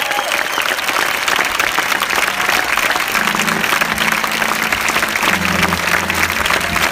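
Large audience applauding, a dense steady clatter of many hands clapping.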